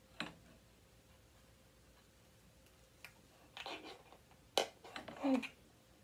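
Handling noise from a plastic laptop charger brick and its cable being worked with yarn: a few sharp plastic clicks and short rustling scrapes, the loudest click a little past halfway.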